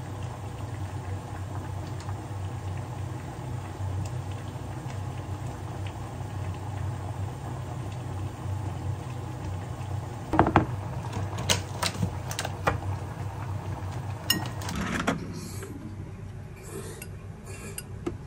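A steady low kitchen hum with a few sharp clinks and knocks of glassware and dishes being handled, the first about halfway through and a cluster a few seconds later.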